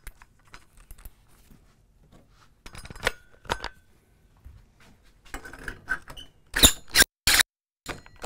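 A carbide-tipped steel hole saw being handled and fitted into a cordless drill's keyless chuck: small metal clicks and rattles, a sharp clink with a short ring about three seconds in, then a few loud short clacks about two-thirds of the way through.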